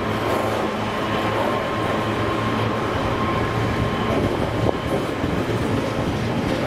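Freight train's container wagons rolling past close by: a steady rumble and clatter of wheels on rail, with a thin steady whine above it and a single sharp click near the middle.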